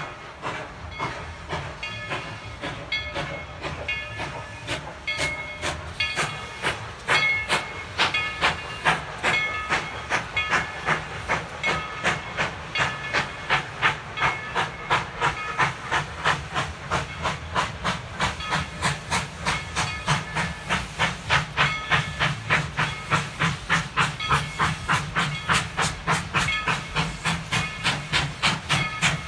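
Steam locomotive working, its exhaust chuffing in an even beat of about three a second with steam hissing, the beats growing louder from about six seconds in.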